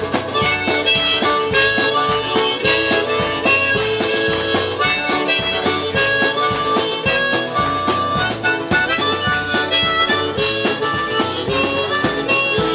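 Live band playing an instrumental break between sung verses: a lead melody of held notes over a steady drum beat.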